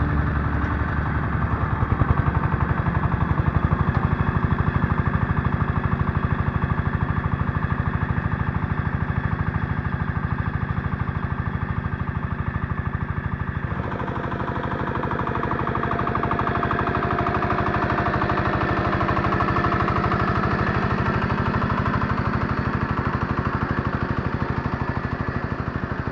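Scout T-12 mini tractor's single-cylinder diesel engine running steadily under load, driving a rear-mounted rotary tiller through the soil. Its sound changes abruptly about halfway through.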